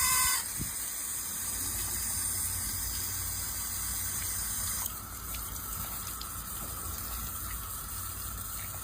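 Steady rushing, hissing noise like running water, after a short beep-like tone right at the start; about five seconds in it drops slightly and changes character.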